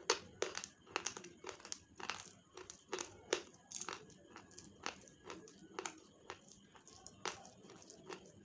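Slate pencils being bitten and chewed: sharp, irregular crunches, about two a second, as the brittle sticks break between the teeth.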